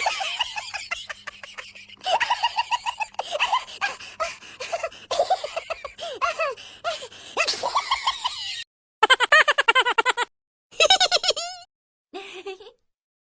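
A run of recorded laughter sound effects in different voices, one clip after another. The last few clips are short and higher-pitched, each separated by a moment of dead silence.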